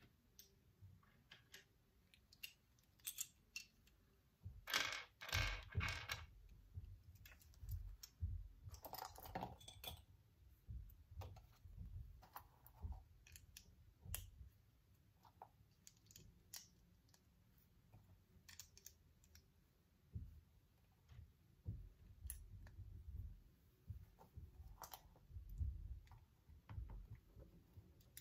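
Small plastic building bricks clicking and clattering as pieces are handled and pressed together, with scattered light clicks and two louder clattering spells about 5 and 9 seconds in.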